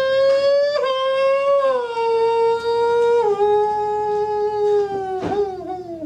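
A man imitating a Formula One car drive-by with his mouth: a high-pitched, engine-like whine. It climbs with a quick break near the start, like an upshift, then drops in several steps as downshifts before a turn, sinking lower near the end.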